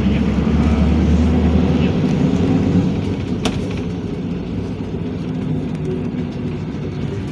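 PAZ Vector Next city bus engine and road noise heard from inside the bus while it moves: a steady low drone, a little louder for the first three seconds and then easing off. A single sharp click comes about three and a half seconds in.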